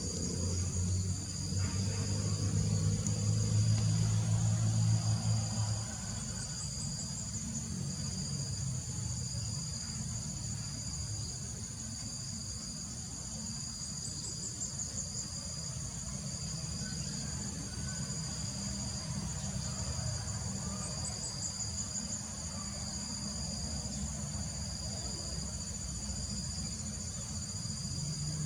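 Insects buzzing steadily: a continuous high drone with a second, evenly pulsing tone beneath it. A low hum is loudest through the first six seconds or so.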